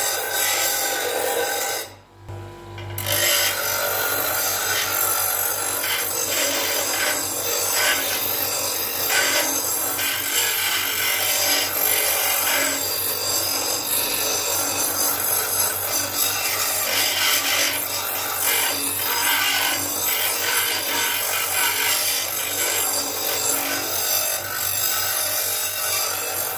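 Parkside PDOS 200 C2 bench grinder, with its 200 W induction motor, grinding a rusty piece of metal: a continuous grinding noise over the motor's steady low hum. About two seconds in there is a brief break, then the grinding resumes.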